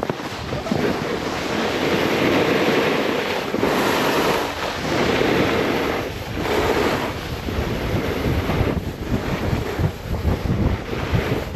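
Snowboard riding over slushy snow, a continuous rushing scrape that swells and dips several times, with wind buffeting the microphone.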